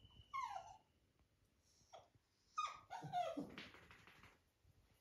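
Labrador puppy whining and whimpering: a short falling cry about half a second in, then a run of falling whines from about two and a half seconds in, one sliding down long and low. The whining is the puppy's plea to be let up onto the bed.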